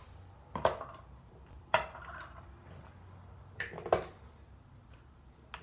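Three sharp clicks or taps of handling: she is putting argan oil in her hair.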